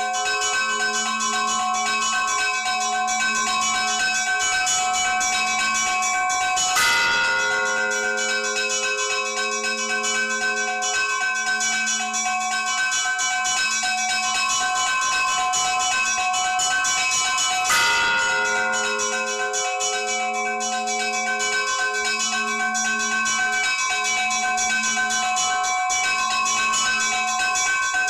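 Orthodox church bells ringing together: quick continuous chiming of the small bells over a lower bell that sounds about once every second and a half. The big bell is struck twice, about seven and eighteen seconds in, and each stroke rings on and slowly dies away.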